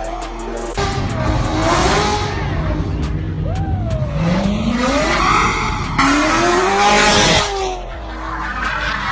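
A sports car's engine revving up while its tyres squeal in several bending bouts, loudest near the end.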